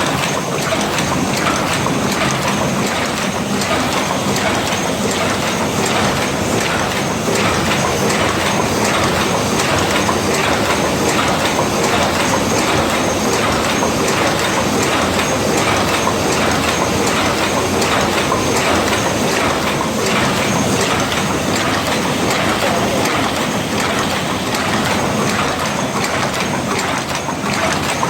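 Paper-cup forming machine running with a steady, fast mechanical clatter.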